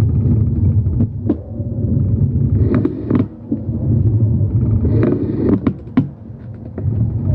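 Low, steady rumble of a running vehicle, pulsing slightly, with sharp clicks or knocks at irregular moments; this is the noise the owner finds suspect.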